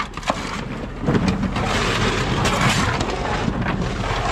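A long-handled hoe and a push broom scraping over a truck's bed, dragging split coconut halves so they clatter and knock together; scattered sharp knocks stand out over the steady scraping.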